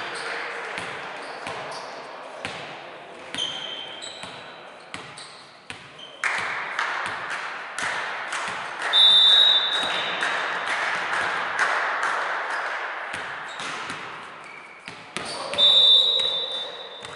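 Volleyball in an echoing sports hall: a referee's whistle blows short blasts about three seconds in, about nine seconds in and again near the end, with the ball being struck and bouncing on the court and players' voices between.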